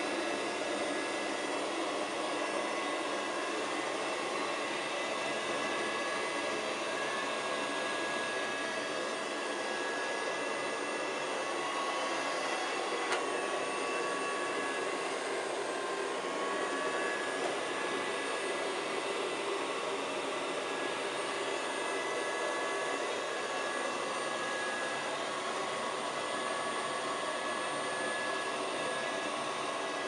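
Miele Scout RX3 robot vacuum cleaner running over carpet: steady suction fan and brush noise with a thin whine that wavers slightly in pitch, and a single sharp click about 13 seconds in.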